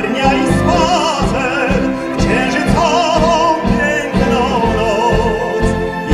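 A male operatic voice singing long notes with wide vibrato into a microphone, over orchestral and band accompaniment with a steady beat.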